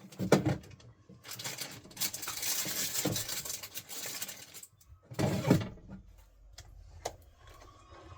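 Handling noises of things being picked up and moved: a few sharp clicks and knocks, a couple of seconds of rustling about two seconds in, and a dull thump about five seconds in.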